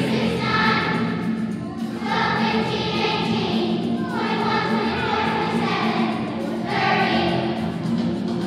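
Children's choir singing a song in phrases of about two seconds each, over a steady instrumental accompaniment.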